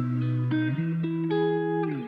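Background music played on guitar: plucked notes that change pitch about every half second.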